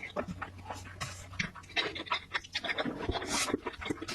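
Close-miked eating sounds: wet chewing, smacking and slurping of food, as irregular clicks and short bursts with one longer slurp-like hiss about three seconds in.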